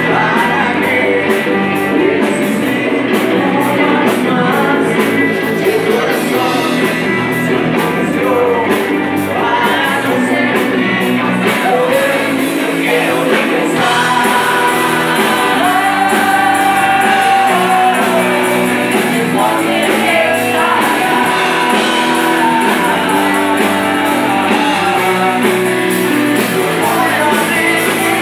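Live rock band playing a song: two electric guitars, bass guitar and drum kit, with a male lead singer singing over them.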